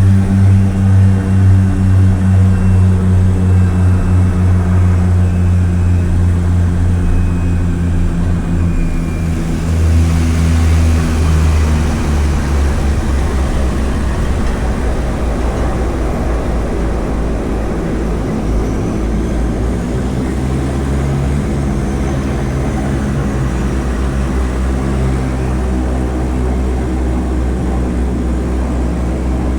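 Float plane's propeller engine running steadily. About ten seconds in the engine note shifts and a hissing rush rises over it.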